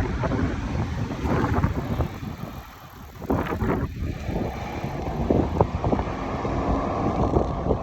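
Wind buffeting the microphone: an uneven low rumbling noise that dips briefly about three seconds in, then picks up again.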